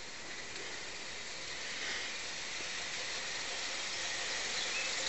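Live-steam gauge IIm garden-railway locomotive approaching along the track, a steady hiss of steam and running noise that grows slowly louder.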